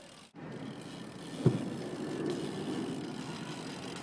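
Bicycle riding: a steady rumble and rattle from tyres and frame rolling on pavement, with one sharp knock about a second and a half in.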